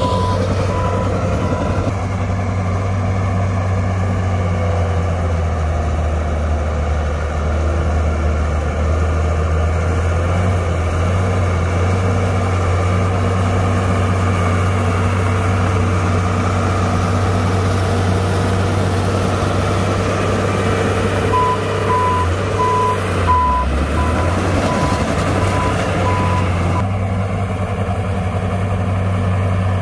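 Heavy diesel earthmoving machine running steadily with a deep engine drone. A backup alarm beeps at one pitch, about twice a second, briefly at the start and again for several seconds past the middle.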